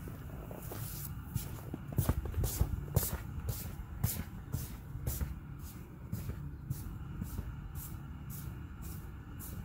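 Footsteps crunching on cold, packed snow at an even pace of about two steps a second, with a few louder knocks about two to four seconds in, over a low steady hum.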